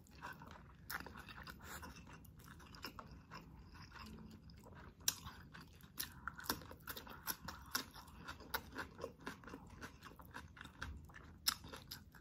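Close-miked chewing and biting: many small wet mouth clicks and crunches from eating chicken adobo with rice, with crisp bites into a raw cucumber slice.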